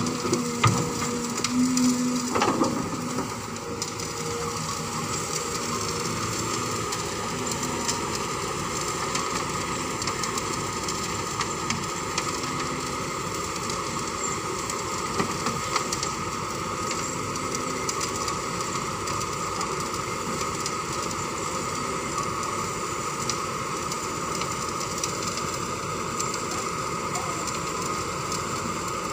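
Kobelco SK200 hydraulic excavator running steadily as it digs and swings, with knocks and scraping from the bucket in the soil during the first few seconds.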